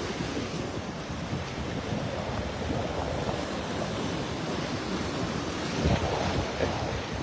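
Sea surf washing in over low rocks at the water's edge: a steady rush of breaking, foaming water, with a louder surge about six seconds in.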